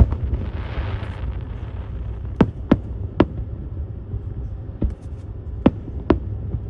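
Firework shells bursting, a string of about seven separate sharp bangs at uneven spacing over a steady low rumble.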